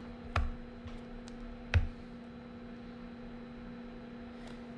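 Small screwdriver clicking and knocking against the aluminium bottom case of a MacBook Air while driving its pentalobe screws back in: two sharp knocks about half a second and nearly two seconds in, with a few faint ticks between, over a steady electrical hum.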